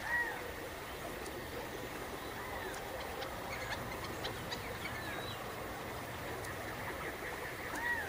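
Birds calling: one bird repeats a short arched call note every second or two, loudest just after the start and again near the end, over faint chips from other birds and steady background noise.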